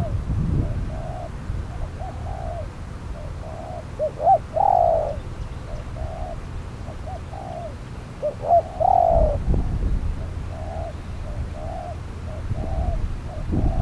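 Spotted doves cooing in a steady run of short, repeated coos, with two louder phrases about four and nine seconds in.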